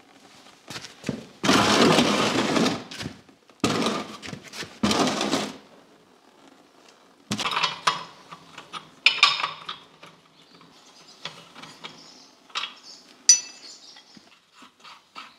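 Steel wrenches working bolts loose on a tractor loader's coupler bracket, metal clanking and scraping against metal. There are three longer scraping bursts in the first few seconds, then scattered short metal clinks.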